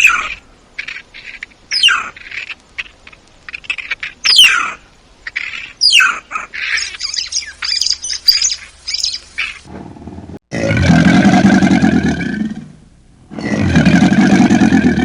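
Birds chirping with short, sharp, falling whistles for about ten seconds, then a large animal gives two long, loud calls of about two seconds each.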